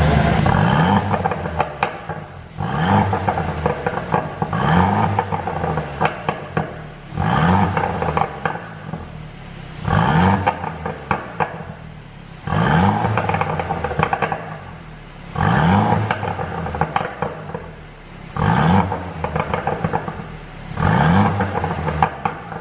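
Mercedes-Benz W205 C200 Coupe's turbocharged four-cylinder engine revved about eight times, each blip rising in pitch and falling back with a run of pops and crackles from the exhaust on the overrun. The crackles come from a tune set up to make the exhaust pop.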